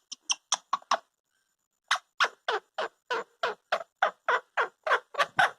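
Ringneck parrot scolding: a rapid run of short, harsh calls, about four a second, broken by a pause of about a second early in the run.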